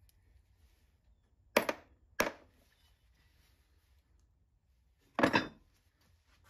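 Metal desk parts dropped into a hard plastic parts bin: two sharp clacks of small metal pieces about half a second apart, then a heavier clattering clunk about five seconds in as a cast-iron desk bracket is set down among the loose parts.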